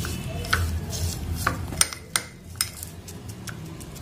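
Spoon stirring chopped, honey-coated fried nuts in a bowl, with irregular clinks and scrapes against the bowl.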